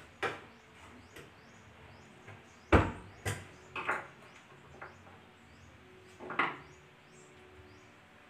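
Scattered sharp knocks and clicks of hands and hardware against a plywood cabinet, about six in all, the loudest nearly three seconds in.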